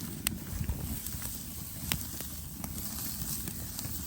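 Campfire wood crackling, with two sharp pops and a few fainter ticks over a steady low rumble.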